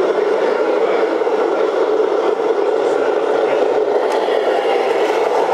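Radio-controlled scale model trucks driving, a steady whir with no breaks.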